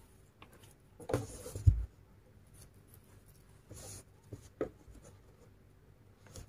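Hands handling a crocheted macramé-cord bag: scattered scratching and rustling as it is turned over and moved on a tabletop, with a soft thump about a second and a half in and a few small clicks near the end.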